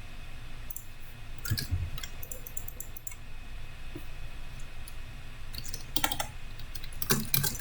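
Scattered computer keyboard clicks, single taps and short runs of keystrokes, busiest near the end, over a low steady hum.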